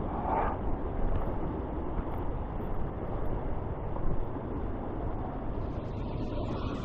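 Steady rushing roar of a waterfall, an even wash of noise with a deep low rumble.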